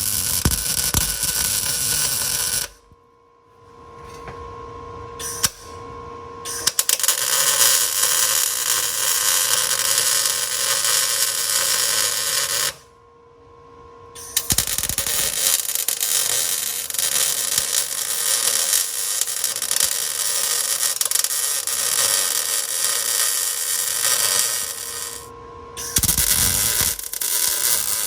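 Electric arc welder laying long passes of crackling, hissing sizzle on steel that was not cleaned first. The arc stops about three seconds in and again about thirteen seconds in, with a steady hum in the pauses.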